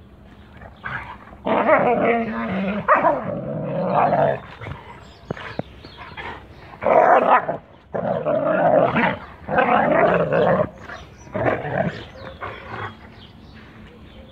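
Two young Kangal shepherd dogs growling at each other while play-wrestling, in several rough bursts of one to three seconds each.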